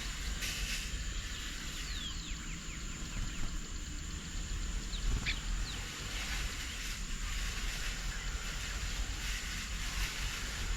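Outdoor garden ambience with a steady low rumble and hiss, and a few short, high bird chirps, mostly about two and five seconds in.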